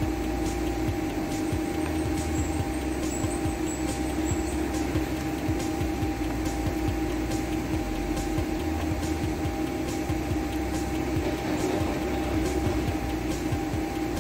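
A steady mechanical hum holding two even tones, with a faint tick about once a second.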